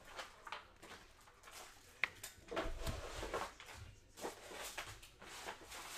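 Stacks of trading cards being handled and set down on a tabletop: light rustling and taps, with a sharp click about two seconds in.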